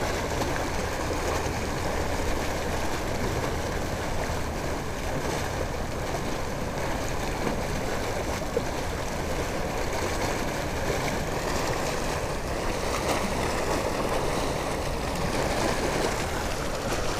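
Steady rushing of water spilling out of a large drainage spill pipe into a river, at a low flow.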